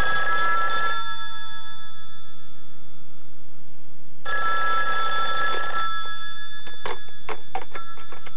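Telephone bell ringing twice, each ring about a second and a half long and spaced about four seconds apart. Near the end comes a quick run of sharp clicks.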